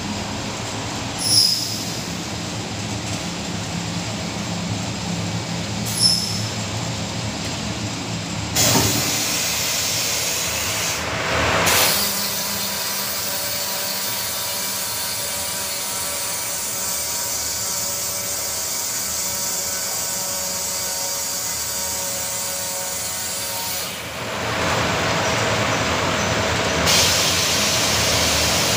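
Snack seasoning line running: a stainless-steel octagonal flavouring drum turning with snack pellets tumbling inside. There is a steady machine hum with a hiss over it that grows louder about eight and a half seconds in and again near the end. Two sharp knocks come about a second and a half in and again at six seconds.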